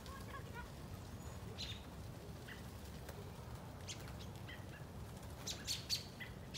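A flock of American robins in a bare tree giving short, sharp chirping calls, scattered at first and coming in a quick run of several near the end, over a steady low rumble.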